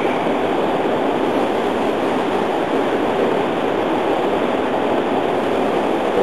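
Steady rush of flowing river water, an even loud hiss with no breaks.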